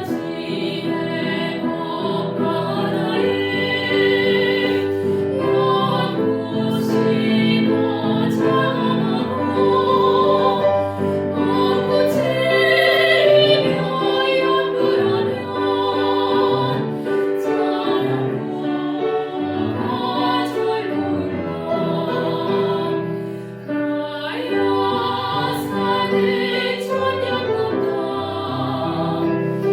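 A Korean Buddhist hymn (chanbulga) sung in a classical style with vibrato, over piano accompaniment.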